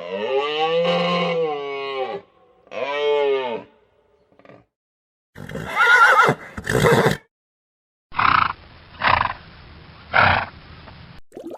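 Farm animal calls in quick succession: two long calls that rise and then fall in pitch, two short shrill wavering calls, then three short breathy snorts.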